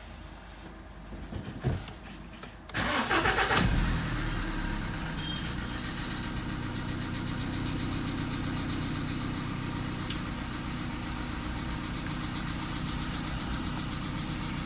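Volkswagen Polo sedan engine cold-started: about a second of starter cranking, catching just under four seconds in, then settling into a steady idle. Under it is the light engine knock that the owner says is there but not strong.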